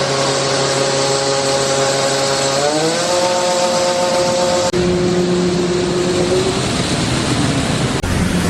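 Combine harvester machinery running loud: a steady whine of several tones rises in pitch about three seconds in, then changes abruptly to a lower, steadier hum near the middle.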